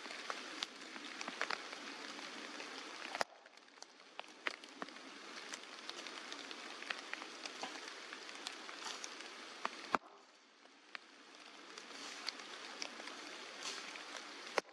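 Steady rain falling, with many single drops ticking sharply over an even hiss. The sound changes abruptly about three seconds in and again about ten seconds in, each time a little quieter.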